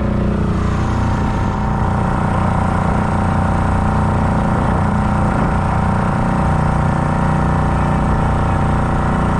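Small motorboat's engine running steadily while the boat is under way.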